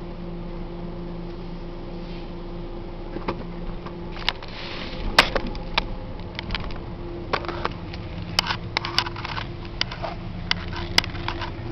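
Ford Ranger pickup's engine running at low speed, a steady hum heard inside the cab, with scattered sharp clicks and knocks starting about four seconds in.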